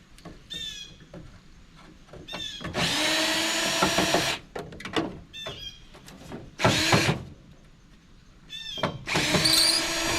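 Power drill used as a screwdriver, running in three bursts with a steady motor whine as it backs screws out of the unit.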